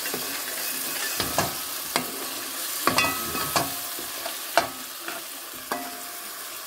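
A metal spoon stirring thick tomato sauce in an aluminium pot, scraping and knocking against the pot's side about six times, with a brief ring after each knock. Under it the sauce sizzles steadily.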